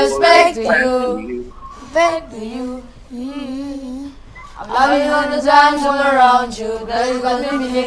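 Unaccompanied singing without words. A voice runs through a short melody and holds a wavering note, then several voices join in harmony about five seconds in.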